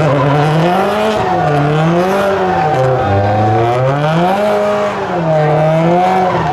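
A car engine revving up and down again and again, its pitch swelling and falling about every second and a half.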